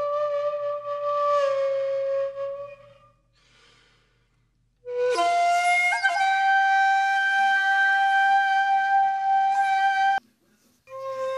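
Background flute music in long held notes. The first note fades out about three seconds in. After a short pause a higher note is held for about five seconds and then cuts off suddenly, and a new phrase starts near the end.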